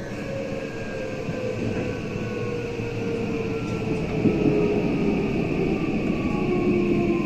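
Running sound of a JR West 323 series train with a Mitsubishi full-SiC VVVF inverter: the traction motors whine in several tones that slowly fall in pitch as the train slows, over a steady high inverter tone. Wheel and rail rumble grows louder from about halfway through.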